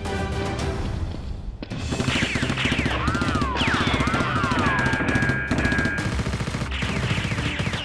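Rapid automatic gunfire sound effects, a dubbed-in movie-style machine-gun burst with falling whistle-like tones over it, starting about two seconds in after a stretch of background music.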